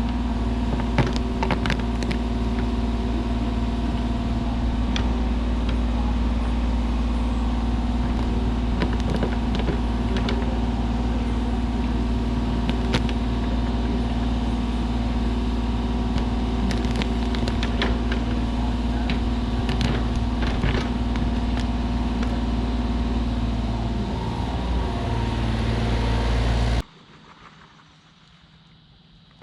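Diesel engine of a compact Kubota earthmoving machine running steadily under work, with scattered knocks and clanks. The sound cuts off abruptly near the end, leaving only faint background.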